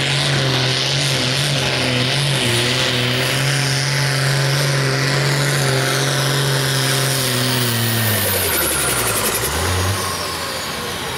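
Ford tractor's diesel engine running flat out under heavy load while pulling a weight-transfer sled, holding a steady pitch. About eight seconds in the engine is dragged down, its pitch falling and then wavering as the sled's load overcomes it, while a faint high whine falls away.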